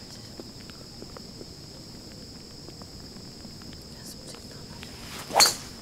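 A single sharp crack of a golf club striking the ball on a tee shot, about five seconds in, over a steady high chirring of insects.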